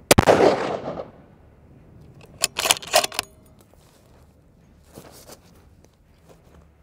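A single shot from a .338 Lapua Magnum Ruger Precision Rifle: a sharp blast with a fading tail of about a second. About two seconds later comes a quick metallic clatter of the bolt being worked to eject the spent case and chamber the next round, with a few lighter clicks after it.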